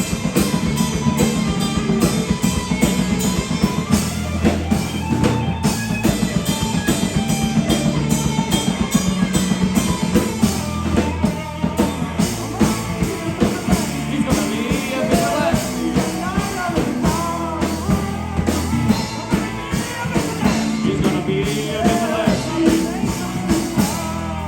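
Live rock band playing loudly: a drum kit keeping a steady beat under bass and electric guitar, with a melody line rising and falling over it in the second half.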